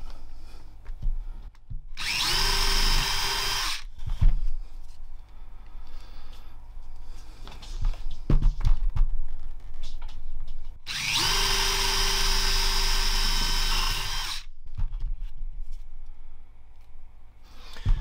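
Electric drill spinning a Dremel cutting disc, cutting into the plastic of a car key fob around the metal key blade: two runs, one of about two seconds and one of about three and a half seconds, each opening with a rising whine as the drill speeds up. Between the runs, clicks and knocks of the key being handled.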